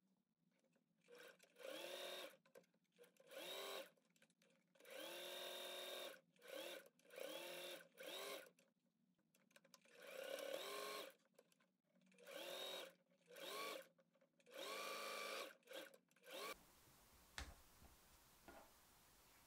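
Singer 4432 home sewing machine stitching a thick fleece strip in about ten short runs. The motor winds up in pitch at the start of each run and stops between them. Near the end the runs give way to faint handling ticks.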